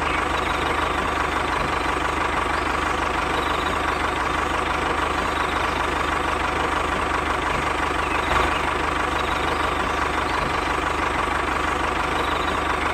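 Tractor engine idling steadily, a constant low mechanical running sound with no change in pitch.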